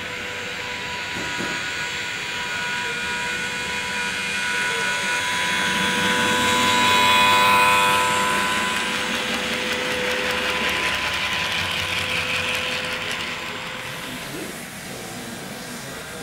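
HO scale model train, a T class diesel locomotive hauling passenger cars, running past on the layout track: a steady hum with the rolling rattle of its wheels. It grows louder as the coaches pass close, is loudest about halfway through, then fades as the train moves away.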